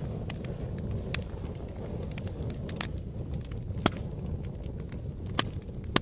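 Wood fire burning: a steady low rumble of flames with scattered sharp crackles and pops from the burning wood, about five clear ones, the loudest nearly four seconds in.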